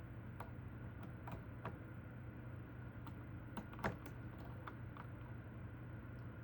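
Faint, irregular small clicks of a lock pick and tension wrench working the pins of a Goal D9 nine-pin padlock, the loudest a little before four seconds in.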